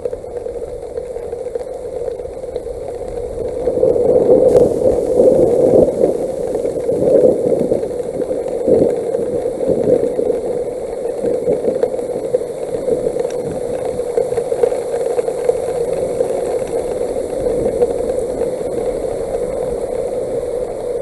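Hail pelting the nest camera and its microphone: a dense, steady clatter of small impacts over a constant noisy hum. It grows heavier about four seconds in and eases off a little after about ten seconds.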